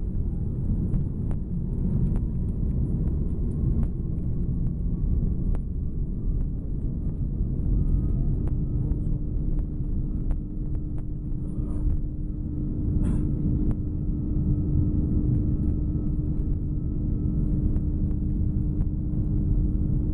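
Airbus A330-300 jet airliner's engines giving a steady low rumble, with a faint whine slowly rising in pitch and a second steady tone joining about halfway; light knocks come every couple of seconds.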